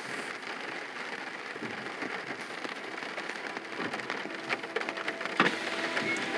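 Rain hitting a car's windshield and body, heard from inside the car as a steady hiss of many small drop ticks, with one sharper tap about five seconds in.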